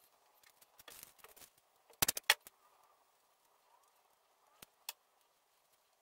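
Small metal switch contacts clicking and tapping on a wooden tabletop as they are wiped clean with a cloth rag. A quick run of sharp clicks about two seconds in is the loudest part, with softer rustling before it and two single clicks later.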